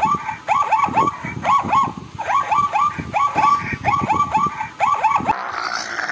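Plains zebra barking: runs of short, yelping barks, each falling in pitch, about four or five a second, stopping abruptly about five seconds in.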